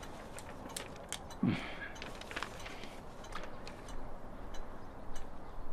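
Quiet room tone with faint handling of a paper sheet: light rustles and a few small clicks, the most noticeable about a second and a half in.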